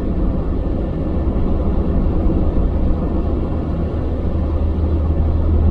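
Steady low drone of a semi truck's diesel engine and road noise, heard from inside the cab while driving.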